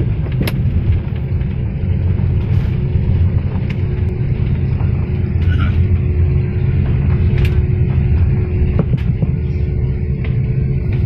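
Jet airliner cabin noise on the landing roll: a loud, steady low rumble with a faint steady hum, and a few sharp clicks.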